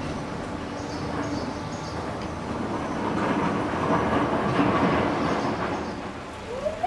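A vehicle going by as a steady rumbling noise that swells around the middle and eases off near the end.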